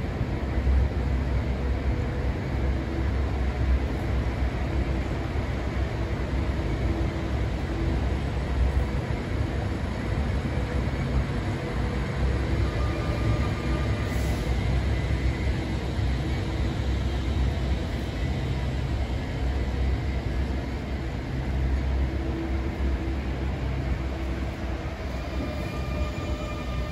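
Transperth C-series electric multiple-unit train (Alstom) moving along the platform, with a steady low rumble of wheels on rails and running gear as its cars pass. A faint higher whine joins in near the end as the cab end goes by.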